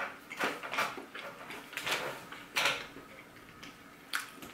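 A person eating: chewing a mouthful of food, with about five short wet mouth noises spread unevenly.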